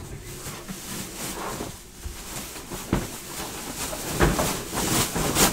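Foil trading-card pack wrappers crinkling as they are handled, with a few soft knocks against the table about three and four seconds in.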